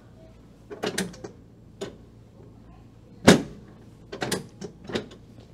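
A string of sharp clacks and knocks as a chiropractic sacrum adjustment (counternutation) is worked on the treatment table. There are several separate strikes, and the loudest comes about three seconds in.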